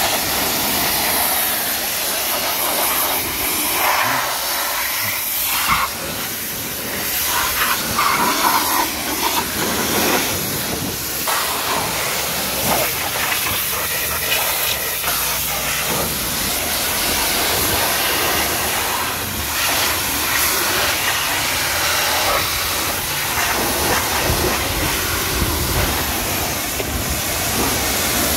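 Pressure washer's high-pressure water jet spraying a foam-covered car's glass and panels: a loud, continuous hiss that shifts in tone as the spray moves over different surfaces.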